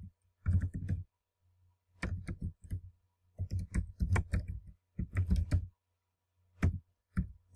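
Typing on a computer keyboard: several quick runs of keystrokes with short pauses between them, then a couple of single key presses near the end.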